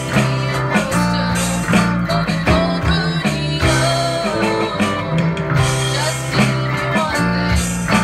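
Live band music: a red semi-hollow-body electric guitar and a strummed acoustic guitar playing together over steady low notes.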